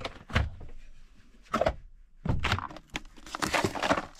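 Close handling noise in several short bursts: crinkling and tearing like packaging being handled, with a few knocks, the longest burst near the end.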